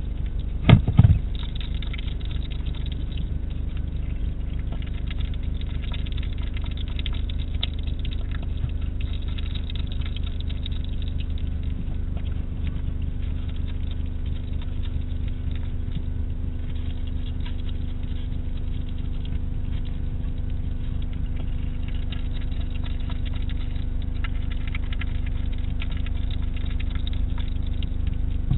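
A hedgehog eating from a food dish: a continuous, irregular crackle of chewing and crunching over a steady low electrical hum, with a sharp double knock about a second in.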